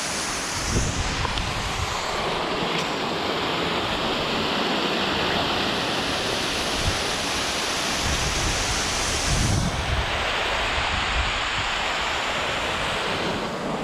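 Waterfall's rushing water, a steady, loud hiss, with a couple of low wind buffets on the microphone.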